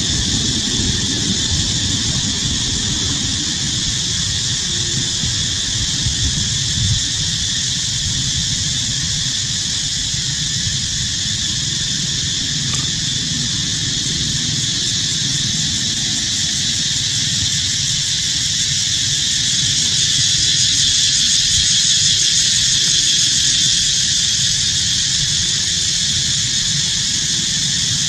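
Steady high-pitched drone of a forest insect chorus, swelling slightly about two-thirds of the way through, over a constant low rumble.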